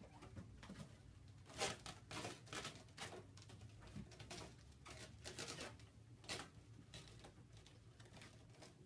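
Kittens' paws and claws tapping and scratching on wall-mounted cat shelves and steps as they climb: faint, irregular scratches and light taps, the loudest a little over a second and a half in and again about six seconds in.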